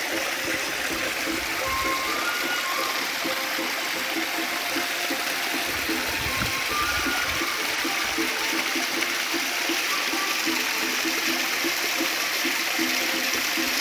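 Water of a small rock waterfall pouring and splashing down over boulders: a steady rushing hiss, with a faint melody of background music under it.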